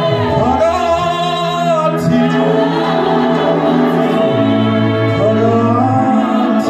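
Gospel singing with several voices holding long notes that slide in pitch, over sustained electric keyboard chords and bass notes.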